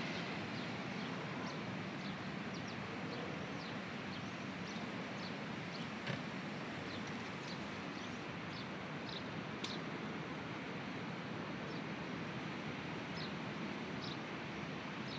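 Steady outdoor background noise with many short, high chirps from small birds scattered throughout, and a single sharp click about six seconds in.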